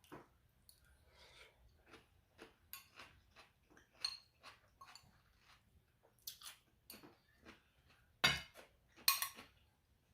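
Cutlery tapping and clinking against a plate, with close-miked chewing between, in a string of small taps; the sharpest clinks come about four seconds in and twice near the end.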